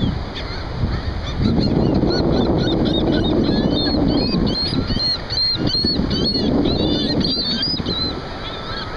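A flock of gulls calling: many short, high calls overlapping from about a second and a half in, over a steady rush of wind and surf.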